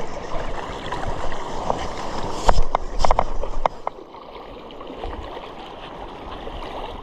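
Steady rushing of wind and lapping water on the shoreline, with a quick cluster of sharp clicks and knocks about two and a half to three and a half seconds in as a dry forked stick is handled and jabbed into the sand.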